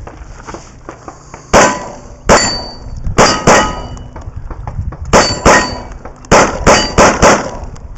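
Rapid pistol fire from a Glock, about ten shots, several in quick pairs, each followed by a short metallic ringing clang like steel targets being hit.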